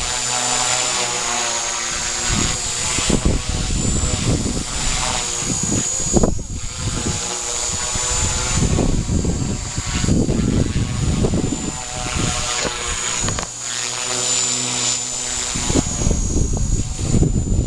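Strong wind gusting and buffeting the microphone in uneven surges, with a steady high-pitched whine running underneath.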